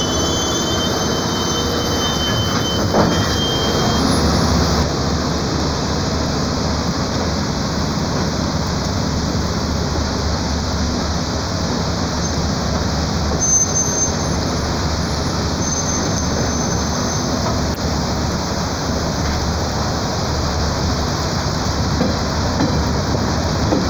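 Passenger train heard from on board while running in rain: a steady rumble of wheels on rail, with high-pitched wheel squeal over the first four seconds and brief squeals again around the middle.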